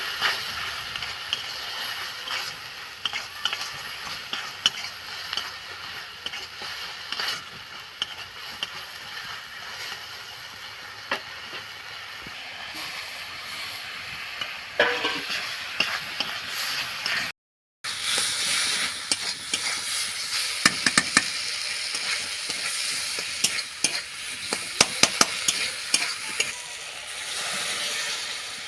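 A cauliflower-and-egg dish sizzling in hot oil in a pan, stirred with a metal spatula that clicks and scrapes against the pan. The sound cuts out for a moment partway through, and the scraping is busier after the break.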